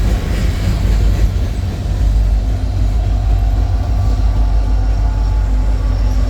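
Empty Norfolk Southern coal train rolling past, a loud, steady low rumble, with a faint steady hum coming in about two and a half seconds in.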